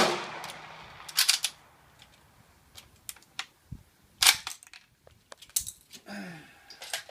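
Metallic clicks of a Remington M1903A3 bolt-action rifle being loaded from a five-round stripper clip: a quick cluster of clicks about a second in, and single sharp clacks past four seconds and again about a second later. A loud gunshot from a neighbouring shooter rings out at the very start, trailing off over about a second.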